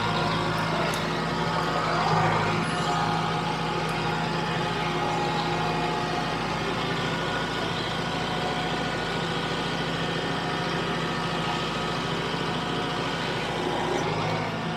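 Kubota M6060 tractor's four-cylinder diesel engine running at a steady speed.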